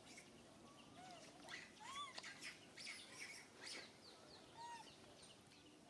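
Faint animal chirps: scattered high chirps and a few short rising-and-falling squeaky calls.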